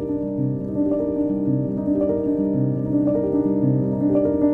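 Instrumental background music with a keyboard melody of held notes changing about twice a second.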